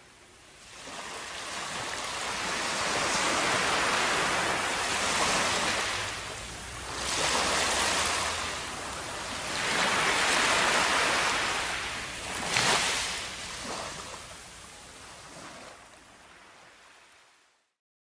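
Ocean surf washing up on a sandy beach: the hiss of the waves swells and ebbs several times, then fades out near the end.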